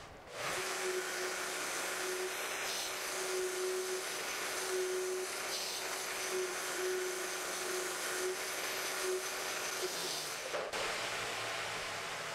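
Belt grinder running with a 150-grit belt, smoothing a metal end piece that was rough-ground on an 80-grit belt: a steady even hiss with a steady hum that stops about ten and a half seconds in.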